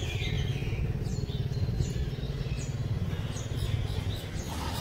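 Small birds chirping in short high calls over a steady low engine hum.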